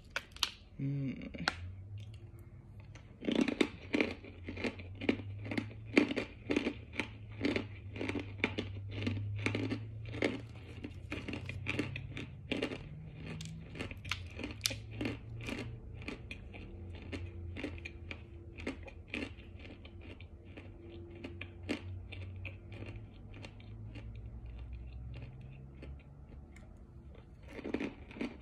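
Crunching and chewing of Kingsford's cornstarch chunks dusted with a flavored powder: a quick run of sharp, crisp crunches, several a second, thinning out toward the end.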